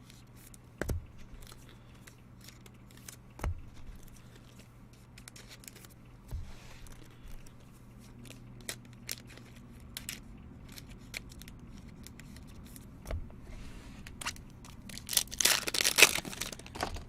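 Trading card packaging being handled and opened: scattered taps and clicks of cards and wrappers, then a loud burst of tearing and crinkling near the end as a foil pack wrapper is ripped open.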